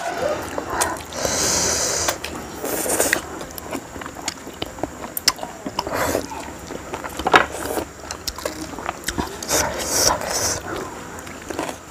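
Noodles being slurped and chewed, with several short slurps, the clearest about a second in, around three seconds in and near the end. Light clicks of chopsticks against plates come in between.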